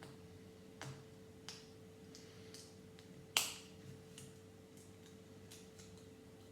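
Plastic Lego bricks clicking and tapping as they are handled and pressed onto the build: about nine scattered clicks, one sharper snap about three and a half seconds in. A faint steady hum lies underneath.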